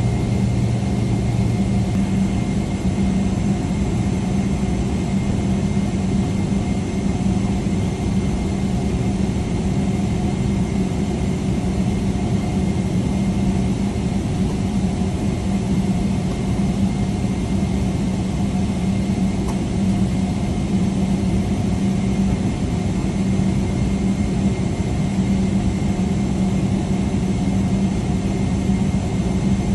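Boeing 777-300ER's GE90 turbofan engines running at taxi power, heard inside the cabin beside the wing: a steady low drone with a faint high whine, unchanging throughout.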